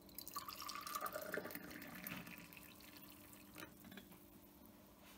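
Hot tea poured from a metal teapot into a tulip-shaped Turkish tea glass, the stream splashing into the glass for about two seconds. The pitch of the pour rises as the glass fills, then the pour tails off.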